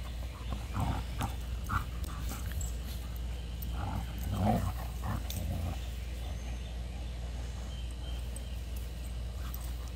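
Two dogs play-fighting, growling in short bouts about a second in and again, loudest, around four to five seconds in.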